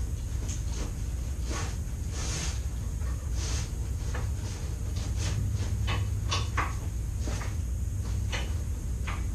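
Alaskan Malamute rummaging through a purse on the floor: a string of short rustles, clicks and knocks as items inside are pushed about, over a steady low hum.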